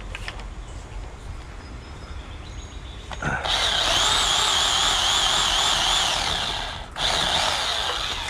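Electric pole saw running up in a tree: a loud motor and chain sound with a high whine that wavers in pitch. It starts about three seconds in, stops sharply for a moment near seven seconds, then starts again.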